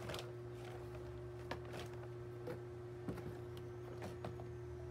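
Handling of long freediving fins and their plastic wrapping: scattered rustles, light taps and clicks as the blades and foot pockets are unwrapped, over a steady low hum.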